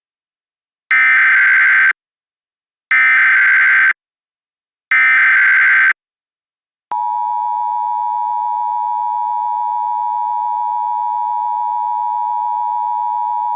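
Emergency Alert System tones: three one-second bursts of the SAME digital header, a warbling data screech, about a second apart. About seven seconds in, the steady two-tone EAS attention signal (853 and 960 Hz) begins and holds.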